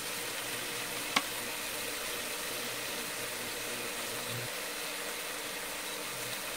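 Shrimp frying in oil in a pan, a steady sizzle, with one short click about a second in.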